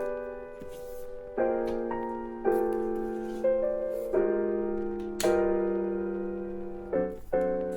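Background lofi music: soft piano chords struck about once a second, each fading away before the next.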